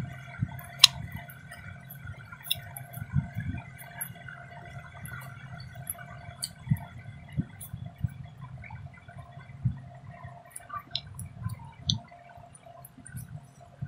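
Puffed rice (muri) being eaten by hand from ceramic bowls: scattered small crunches, rustles and clicks of fingers in the dry rice and of chewing, with low dull bumps. A faint steady hum lies underneath.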